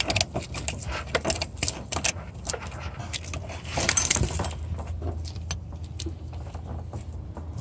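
Rapid metallic clinks and rattles, like metal tools or parts being handled, over a steady low hum, with a short hiss about four seconds in.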